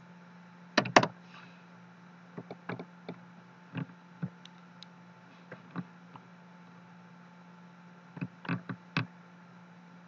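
Scattered clicks and taps from a computer keyboard and mouse, loudest as a quick double tap about a second in and again as a cluster near the end, over a low steady hum.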